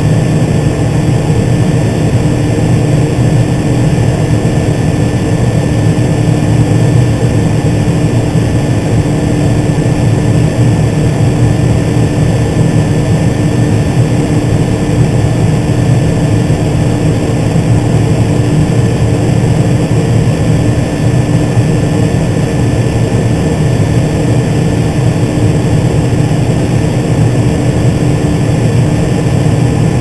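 Case IH Magnum 305 tractor's diesel engine running steadily under load, heard from inside its cab as a loud, even drone with a steady hum and a faint high whine.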